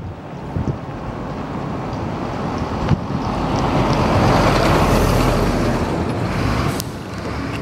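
A passing vehicle: a rush of road noise that swells to its loudest about halfway through and fades again near the end, over wind rumbling on the microphone.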